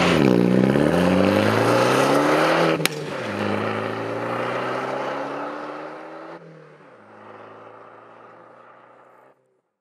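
Alfa Romeo MiTo engine and exhaust accelerating, rising in pitch, with a click and a drop in pitch about three seconds in as it shifts up. It then pulls again and fades away, stopping shortly before the end.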